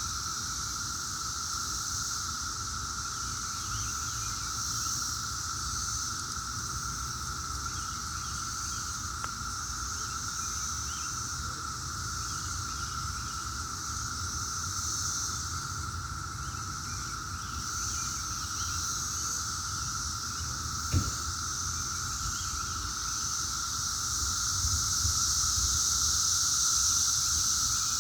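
Chorus of Brood X periodical cicadas: a continuous, steady droning hum at two pitches, one lower and one high, swelling a little near the end. A single sharp tap sounds about three-quarters of the way through.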